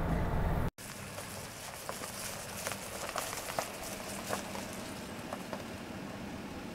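A louder, low rumbling sound cuts off abruptly under a second in. An outdoor hiss follows, with scattered light crackles and ticks.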